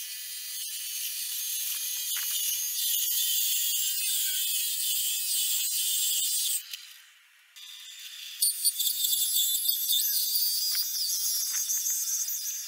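Benchtop drill press driving a hole saw through a clamped wooden board: a steady cutting grind with scattered clicks. It breaks off for about a second midway, then starts again on the next hole.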